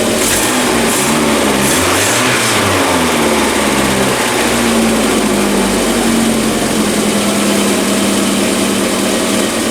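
2000 Kia Sportage's four-cylinder engine running just after a fuel filter change. Its speed rises and falls a few times over the first few seconds, then settles to a steady idle.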